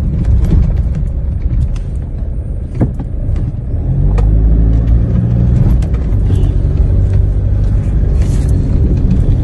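A car running, heard from inside the cabin: low engine and road rumble that gets louder about four seconds in, with scattered light knocks.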